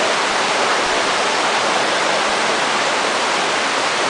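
Waterfall, the falling water rushing steadily and loudly.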